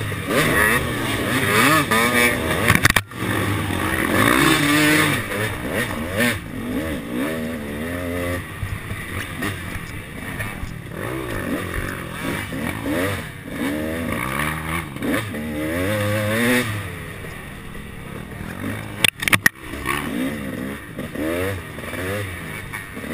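KTM 250 SX two-stroke motocross engine revving up and down as the rider works the throttle and gears, heard from a helmet camera, with a couple of sudden sharp knocks.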